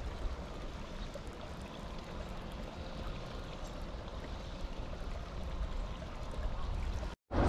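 Wind rumbling on the microphone over a steady, even outdoor hiss, with no distinct events; the sound drops out completely for a moment near the end.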